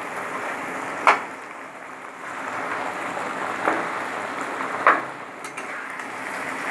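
Taro greens and fried fish heads sizzling in mustard oil in a kadai while being stirred with a spatula, which scrapes and knocks against the pan three times: about a second in, near the middle, and near the five-second mark.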